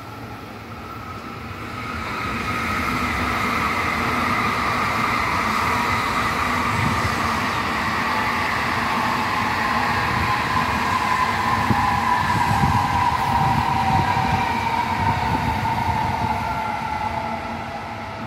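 N700-series Shinkansen passing at speed: a steady rushing run that builds over the first two seconds, with a whine that slowly falls in pitch, easing off near the end.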